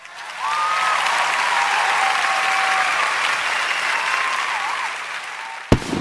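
Crowd applause, an even clatter of clapping with a few faint whistling tones in it, easing off slightly and then cut off by a sharp click near the end.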